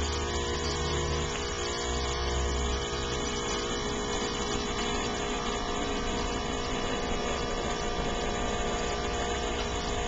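Gibson air-conditioner outdoor condensing unit running: steady compressor hum with the condenser fan.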